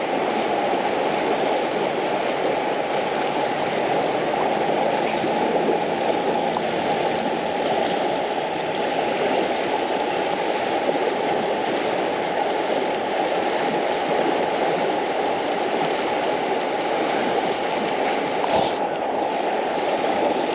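River current flowing steadily past, a constant wash of moving water, with one brief click near the end.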